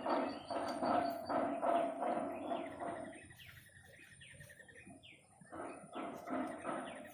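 Birds calling in a rapid run of short repeated notes, loud for about the first three seconds, then fainter scattered chirps.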